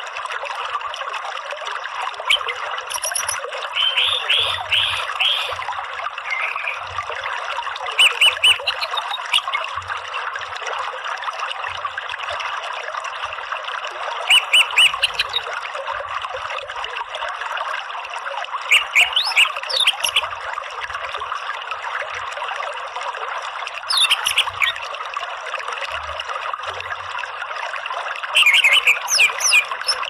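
Orange-headed thrush giving short bursts of quick chattering notes every few seconds, some sweeping upward, over the steady rush of a flowing stream.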